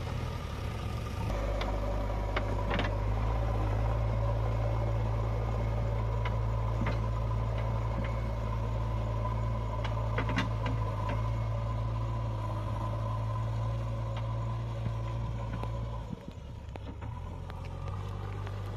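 JCB 3DX backhoe loader's diesel engine running steadily as the machine drives over rough, rutted mud, with a few sharp metallic clanks from the machine. The engine sound drops and becomes fainter and uneven near the end as the machine moves away.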